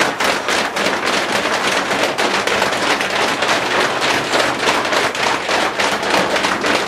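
A group of young rugby players stamping their feet rapidly on a hard changing-room floor, running on the spot to warm up: a fast, steady clatter of many footfalls.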